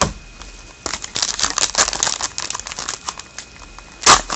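Foil wrapper of a trading-card pack crinkling as it is handled and torn open, starting about a second in, with a louder sharp rustle near the end.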